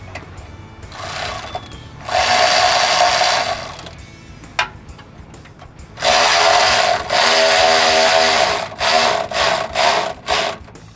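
Power ratchet whirring as it runs in the bolts that hold a truck's air-brake quick release valve to the frame. Two long runs with a steady whine, then several short bursts as the bolts are snugged.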